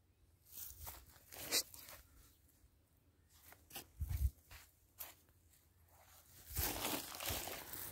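Irregular rustling, scraping and crunching noises, with a dull thump about four seconds in and a longer spell of rustling near the end.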